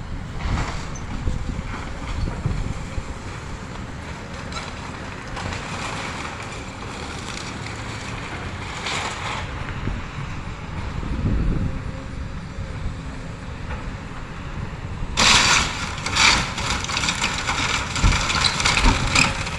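Excavator engine running with wind buffeting the microphone; about three-quarters of the way in, a run of loud cracking and crunching as the house's debris is broken up and knocked down.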